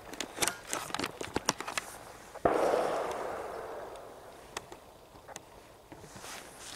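A single distant gunshot about two and a half seconds in, its report rolling away over a second or two. Before it come sharp crackling clicks close by.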